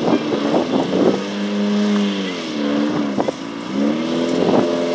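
Off-road race vehicle's engine running at steady revs. Its pitch dips about two seconds in and climbs back up near four seconds, with a few short knocks along the way.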